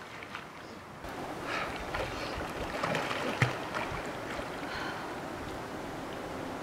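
Water sloshing and splashing from a person swimming with arm strokes, with one sharp knock about three and a half seconds in.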